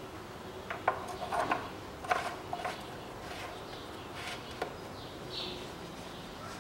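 Light plastic knocks and clicks as the oil filler cap is handled and fitted back onto the valve cover after topping up the engine oil. A cluster of clicks comes between one and three seconds in, and two more come about four and a half seconds in.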